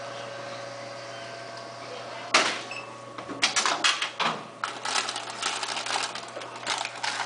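Vending machine humming steadily while the selection is vended, then a single knock about two seconds in as the item drops into the delivery tray, followed by a few seconds of irregular clattering and rattling.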